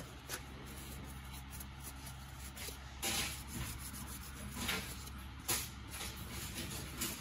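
Cloth rag rubbing and wiping the inside of a plastic brush housing from a Hoover SpinScrub carpet cleaner, in several short scrubbing strokes that start about three seconds in. A faint, steady low hum runs underneath.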